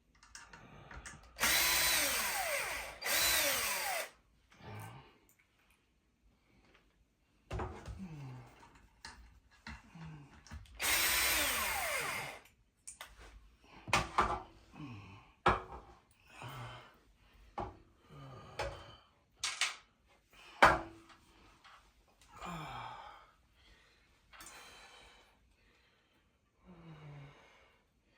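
Power drill running in three short bursts, speeding up and slowing down, as it drives screws. Scattered knocks and clicks of handling follow, the sharpest about two-thirds of the way through.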